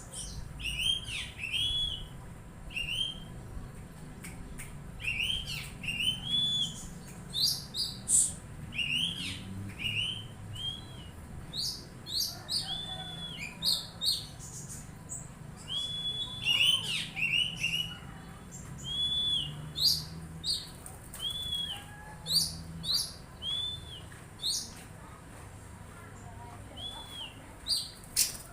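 Songbird chirping: a long string of short, arching whistled notes mixed with sharp high ticks, repeated over and over.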